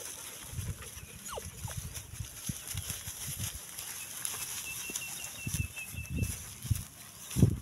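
Dogs panting close by, with irregular low thumps and a louder thump near the end. A quick run of about eight short high chirps comes in the middle.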